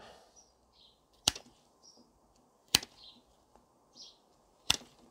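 Freshly sharpened Fiskars P94 bypass secateurs cutting through a thin woody twig three times, about every second and a half, each cut a single sharp snap.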